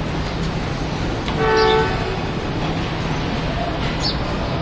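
Passenger train pulling out of the station with a steady low rumble. A train horn sounds once, briefly, about a second and a half in, and is the loudest sound.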